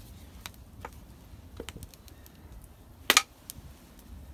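An axe striking wood with one sharp, heavy blow about three seconds in. A few lighter knocks and clicks come before and after it.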